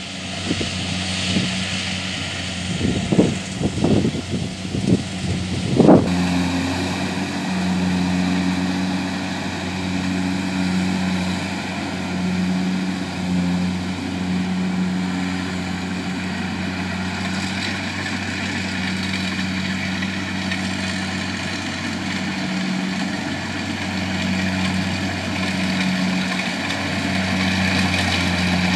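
Kubota DC70 Plus rice combine harvester's diesel engine running steadily as it cuts rice. A few sharp thumps come in the first few seconds, and about six seconds in the engine becomes abruptly louder and closer.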